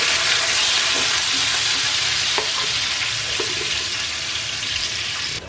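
Freshly added chopped onions sizzling in hot oil in a nonstick frying pan, stirred with a wooden spatula. The sizzle cuts off suddenly near the end.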